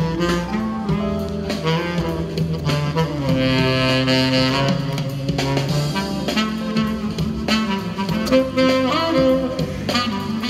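Saxophone playing a jazz melody in held and moving notes over a recorded backing track with drums.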